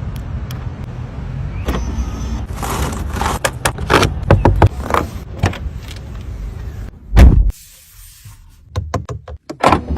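Mercedes-AMG car engine running with a steady low rumble, mixed with clicks and knocks from the car's doors and fittings. A heavy thump about seven seconds in, after which the engine sound is much quieter.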